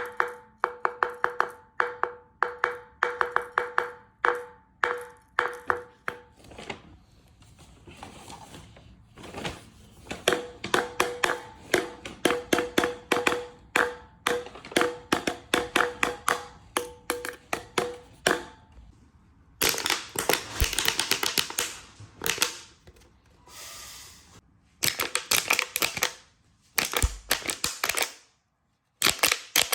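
Runs of rapid, sharp taps or clicks, several a second, with a faint pitched ring, then denser bursts of rattling noise in the last third.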